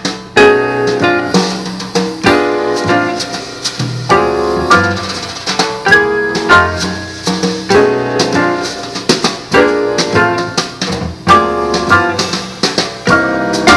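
A song with piano and drums played through a compact stereo Bluetooth speaker with a bass port, demonstrating its sound quality.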